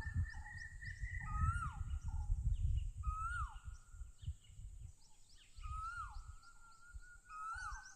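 Bird calls repeated about every second or so, each a short note that rises and then drops sharply, over a steady high whistling tone and low rumbling noise.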